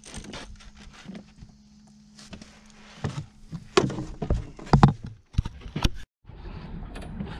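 Irregular knocks and thumps on a small fiberglass fishing boat as a netted fish is brought aboard and gear is handled, loudest in the middle. Near the end the sound drops out for a moment, then gives way to a steady rush of wind and water.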